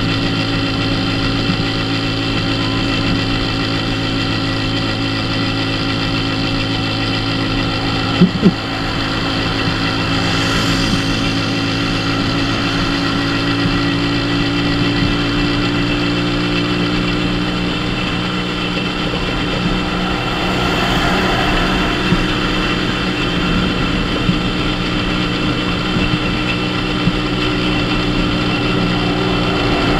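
Dafra Super 50cc motorcycle's small single-cylinder engine running at a steady cruising speed, heard from the handlebars with wind and road noise. Two sharp knocks come about eight seconds in, and passing traffic swells up briefly twice.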